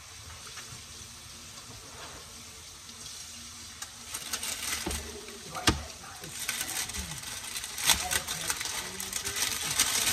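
A clear plastic zipper storage bag is handled and pulled open, crinkling and rustling, with two sharp clicks along the way. Before that, about the first four seconds are only a faint steady hiss.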